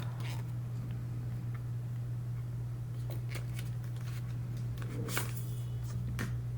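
Hands handling a wireless microphone kit out of its packaging: a few short clicks and soft rustles scattered through the second half, over a steady low electrical hum.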